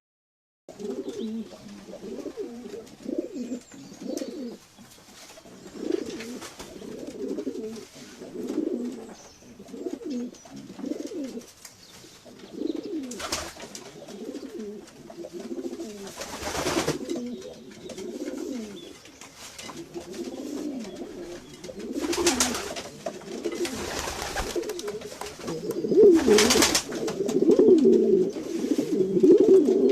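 Domestic pigeons cooing, several low, rolling coos overlapping with one another without a break, with a few brief, sharp noises among them.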